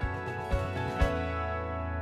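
Background music with a steady beat that stops about a second in on a held final chord with a deep bass note.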